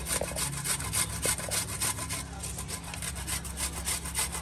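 A peeled onion grated back and forth on a small stainless-steel grater, in quick repeated strokes, several a second.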